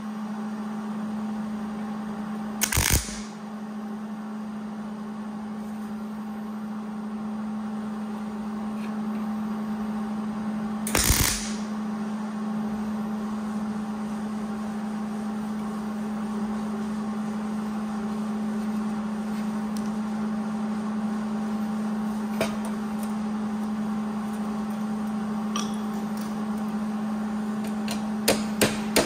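Two short bursts of MIG tack welding on a steel headlight bucket, about 3 and 11 seconds in, over a steady electrical hum. Near the end, a few sharp hammer taps on the metal begin.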